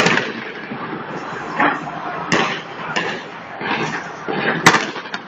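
Aerial fireworks bursting: a string of about seven sharp bangs at uneven intervals, the loudest near the end, over the steady noise of a crowd.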